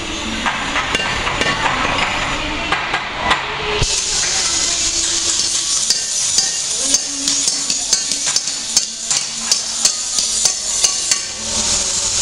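Electric arc welding on steel, a steady crackling hiss that grows louder about four seconds in, with repeated sharp hammer strikes on metal.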